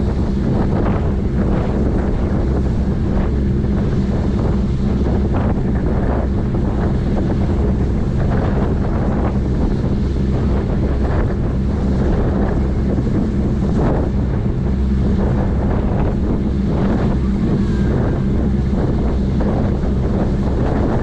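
Sightseeing ship under way: the steady low drone of its engines, with the wake churning and rushing behind the stern. Wind buffets the microphone in uneven gusts.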